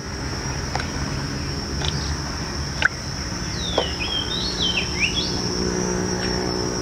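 A bird calling partway through with a short run of quick whistled notes that slide down and up, over a steady high insect buzz and a low steady background noise. A few light clicks come now and then.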